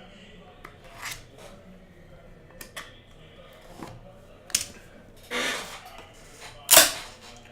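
Trading cards and their packaging being handled: scattered light clicks and taps, then two louder sliding or rustling sweeps, the loudest near the end.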